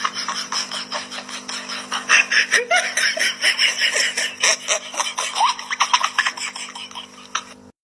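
Rapid bursts of laughter over a steady low hum, cutting off abruptly near the end.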